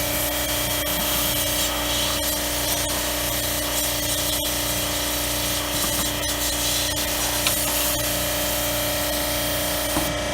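Air-conditioner cleaning washer running steadily, its pump motor humming under the hiss of its water spray.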